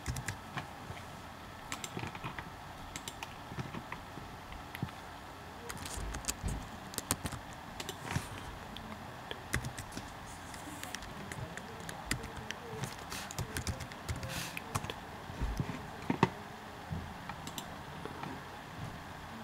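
Irregular clicking and tapping on a computer keyboard and mouse, a few scattered clicks at a time with short pauses between them.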